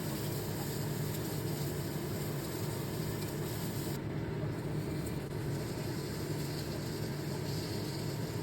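Steady low hum of a running motor or fan, unchanging throughout.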